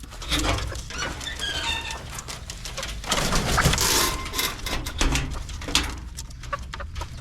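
Chickens calling and clucking: a string of short calls, with a louder, harsher stretch a little past the middle.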